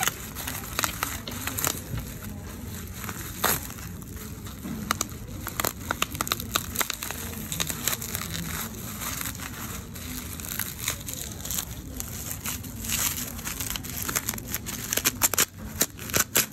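Packaging of an iPhone 11 crinkling and crackling as it is handled and unwrapped, in irregular sharp clicks.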